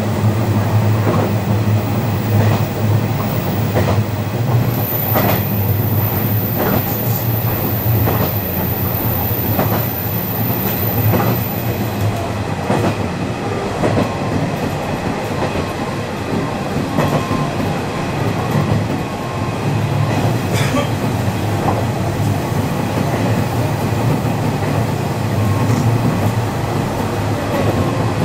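Single-car diesel local train heard from inside the cab end while running along single track: a steady drone from the engine and wheels, with the wheels clicking over rail joints every few seconds.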